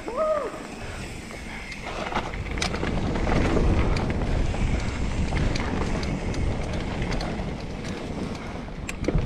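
Mountain bike ridden fast on a dirt trail: wind rushing over the camera microphone, tyres rolling on the dirt and scattered knocks and rattles from the bike over bumps. It grows louder about three seconds in and eases a little toward the end.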